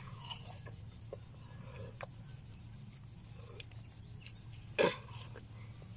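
Person biting and chewing watermelon: faint wet clicks of chewing, then one loud, short crunching bite into the melon about five seconds in.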